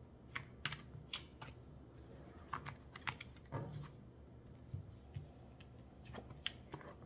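Tarot cards being handled and laid down on a table: faint, irregular taps and clicks, about a dozen in all.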